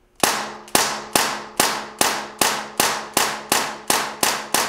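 Rapid fire from an XBG BB pistol converted to run on high-pressure air from a bulk tank: about a dozen sharp pops, two to three a second, each with a short echo. The shots stay even in strength, a sign that the bulk-fill air holds its pressure under fast shooting where a CO2 cartridge would freeze up and lose velocity.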